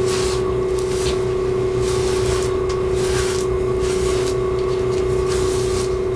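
Steady mechanical hum under repeated hissing, rubbing strokes about once a second, typical of paint being worked onto a surface.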